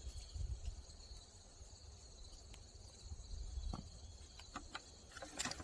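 Insects, likely crickets, chirring steadily and high, over a low outdoor rumble. Near the end come a few short rustles and scrapes, fitting digging in soil.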